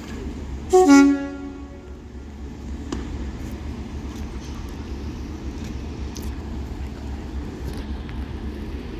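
Train horn sounding one short two-tone blast, a high note dropping to a low note, about a second in, over a steady low rumble.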